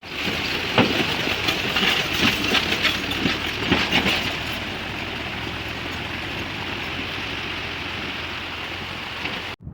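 River water rushing over stones, with a scatter of sharp splashes and clicks in the first few seconds, then a steady rush that cuts off abruptly near the end.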